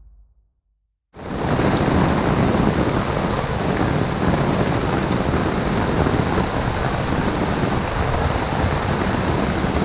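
Steady rain falling on a sailboat's deck and the surrounding marina water, a dense hiss with a low rumble underneath, starting suddenly about a second in.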